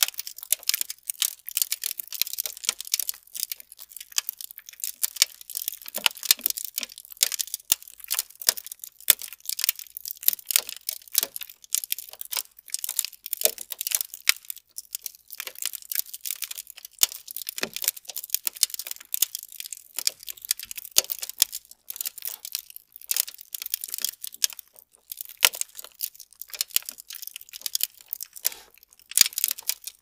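Aluminium foil crackling and pattering under small grains, an ASMR imitation of rain: a dense, irregular stream of tiny high ticks and crinkles.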